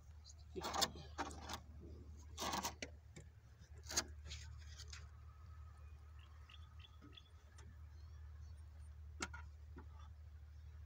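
A handful of faint, irregular knocks and scrapes from hand work with a tool at a concrete gate track, over a low steady hum.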